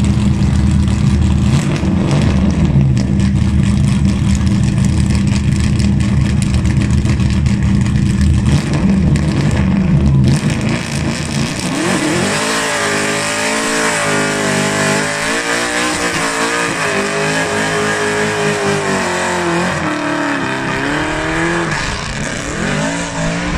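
Race car engine running low and steady at the start line. From about twelve seconds in it is revved high and held, its pitch wavering up and down, over a hiss of spinning tyres in a burnout that throws off pink smoke. The revs drop near the end.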